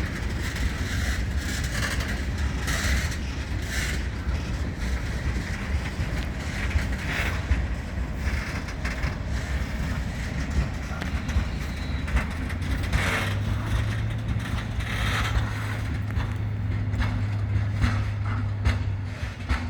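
Freight train with Eas open wagons rolling past: a steady rumble broken by frequent short clacks of wheels over rail joints, with a low steady hum joining about two-thirds of the way through.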